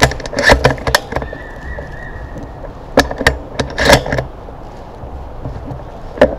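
Dry brush, twigs and leaves crackling and scraping close to the microphone in three bouts, about half a second in, around three to four seconds in, and at the very end, as someone pushes through the woods. A faint steady high tone sounds in the first half.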